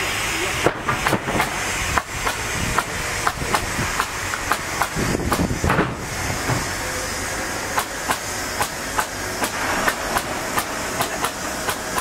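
Triumph 900 Premium band sawmill running with a steady hiss, with frequent sharp clicks and knocks throughout.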